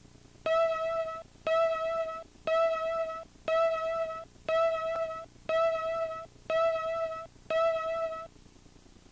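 Videotape countdown leader beeps: eight identical steady beep tones, one a second, each about three-quarters of a second long, marking the numbers counting down to one.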